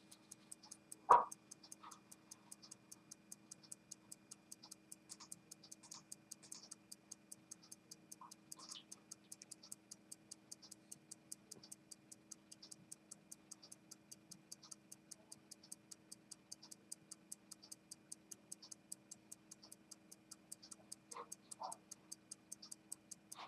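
Exposed movement of a WWII Longines A-9 pocket watch running, its escapement ticking evenly at about five ticks a second. There is a single louder knock about a second in.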